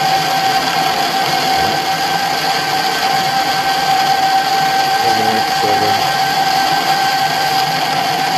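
Colchester Bantam lathe running steadily, with a constant high gear whine over a mechanical hum.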